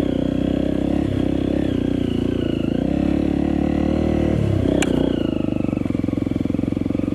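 Trail motorcycle engine running under load up a steep dirt slope, the revs dipping and picking up again twice. A single sharp click sounds just before the five-second mark.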